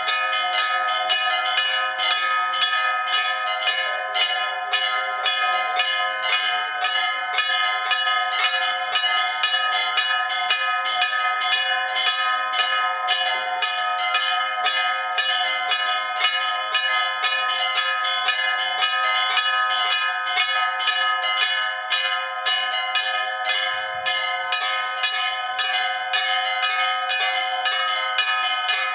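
Temple bells rung continuously in quick, even strikes, about three a second, with several ringing tones sustained between strikes.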